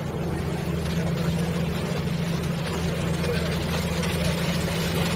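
A boat's engine running steadily at low revs, an even low drone.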